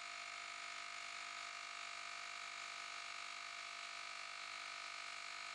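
JM-8817 cordless handheld tire inflator running steadily while pumping up a car tire toward its 42 psi auto-stop, a faint, even motor hum with a steady whine.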